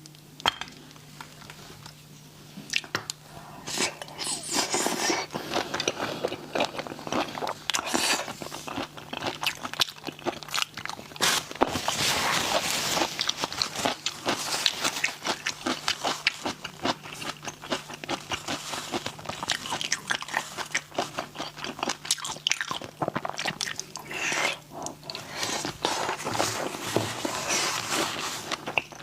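Close-up eating sounds of spicy raw shrimp being bitten and chewed: a dense, continuous run of small wet crunches and clicks. A faint steady hum runs underneath.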